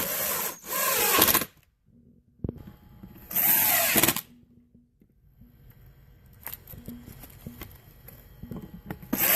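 Cordless drill/driver driving screws through metal brackets into cabinet panels, running in short bursts: two quick runs at the start, another about three seconds in, and a fourth starting near the end, with light handling knocks between.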